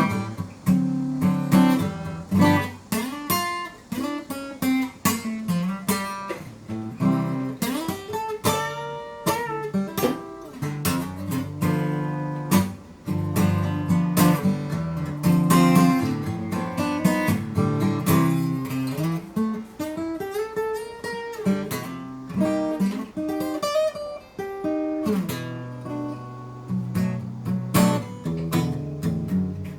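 Acoustic guitar being tried out in a sound check, plucked and strummed chords and single notes, with a few notes bent in pitch.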